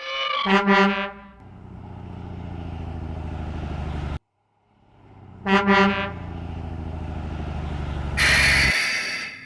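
Truck horn sounding two quick honks, then a truck engine running steadily and building in level until it stops abruptly; the double honk and engine run come again, ending in a loud hiss near the end.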